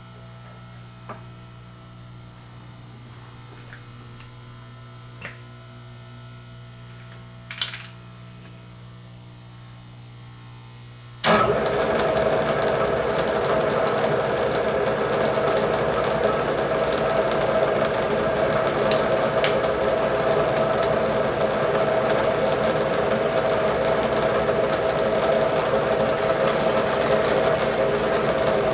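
A low electrical hum with a few light clicks, then about 11 seconds in a machine tool's spindle motor switches on suddenly and runs steadily and loudly, with a steady whine.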